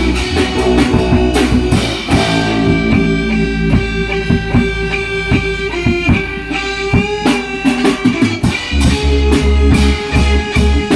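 A band playing: a guitar holding long notes over bass and drum kit.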